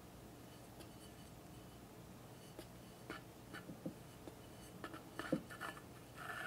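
Metal palette knife scraping and smoothing chocolate whipped cream on the side of a cake, heard as faint, soft scrapes and small clicks. These begin about two and a half seconds in and thicken into a steadier scrape near the end.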